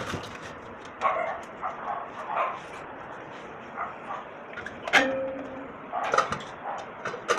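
A dog barking a few times, with some sharp knocks in between.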